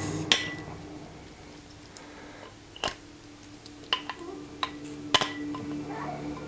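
A handful of separate metallic clicks and taps from a padlock being handled, about five sharp ticks spread over several seconds, the loudest a little after the five-second mark.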